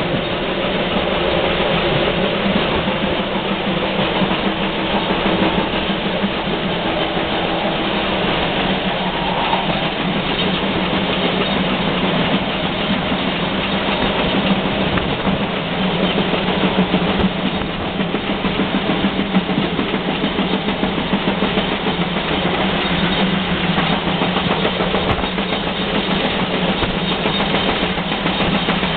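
Steam-hauled train running along the track: a steady rolling noise with a constant low hum throughout.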